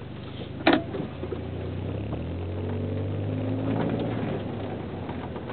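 2004 Mazda3's engine, fitted with a header-back exhaust and short ram intake, idling as heard from inside the cabin. Its note climbs a little around the middle and then eases back. A single sharp knock about a second in is the loudest sound.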